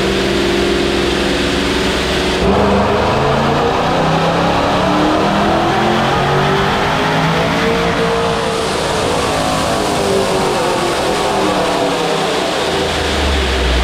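Cammed, ProCharger-supercharged 5.7 Hemi V8 running on a chassis dyno: the engine note holds steady for a couple of seconds, climbs for several seconds to a peak, then falls back as the revs come down.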